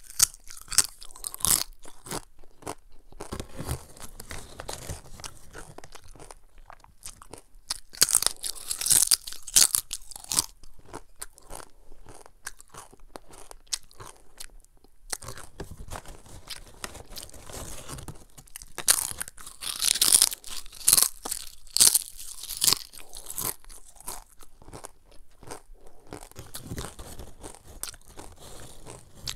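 Crunching and chewing of thin, crisp cassava chips close to the microphone. Loud bursts of sharp crackles come a few times, with softer chewing between them.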